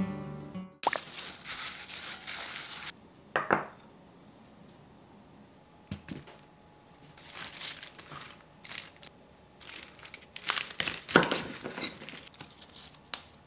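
Crisp bok choy leaves and stalks rustling as they are handled, then a kitchen knife cutting through the crunchy root ends on a wooden cutting board, with several sharp cuts in the last few seconds.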